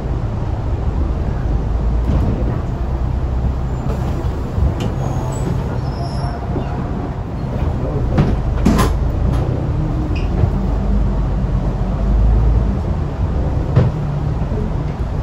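Euro 3 diesel engine of an Alexander Dennis Enviro500 double-decker bus idling with a steady low rumble, heard from inside the lower deck, as the bus stands and its front door mechanism opens, with a sharp clunk about nine seconds in.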